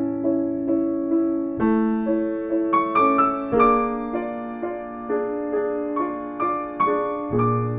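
Solo piano playing a slow, gentle piece: single notes struck a couple of times a second over held chords, with a new low bass note at each chord change.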